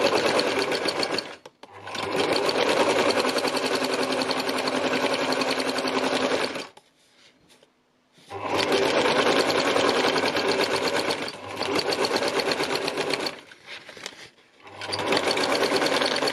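Domestic sewing machine doing free-motion embroidery through paper, the needle hammering rapidly in runs of a few seconds. It stops briefly several times, the longest stop about a second and a half, midway through.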